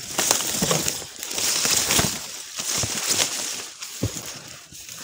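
Dry reed stalks rustling and crackling as they are grabbed and bent aside by hand, with a sharp crack about four seconds in.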